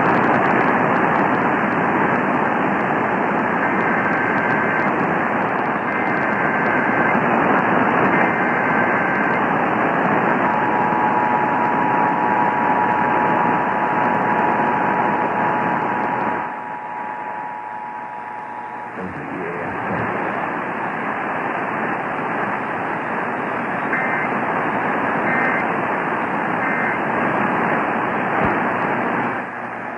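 Emergency Alert System broadcast heard through heavy radio hiss: three warbling SAME header data bursts, then the two-tone EAS attention signal held for about eight seconds, then three short end-of-message data bursts near the end.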